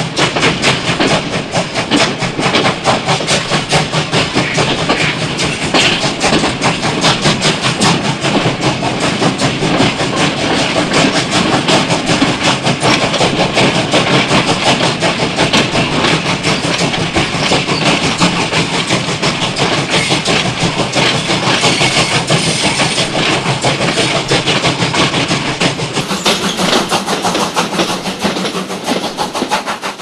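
Steam locomotive running, with a steady stream of exhaust chuffs and wheel clatter on the rails. The sound changes character a few seconds before the end and begins to fade.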